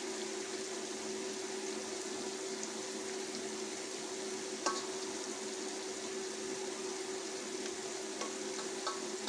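Steady sizzling of chopped onions frying in oil in a cooking pot, under a constant hum. A spoon clinks twice against a steel bowl, about halfway through and near the end.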